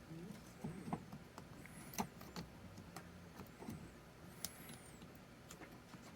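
Faint scattered clicks and scrapes of a flathead screwdriver pressing a rubber seal down into a plastic 3-pin wiring connector, the sharpest click about two seconds in.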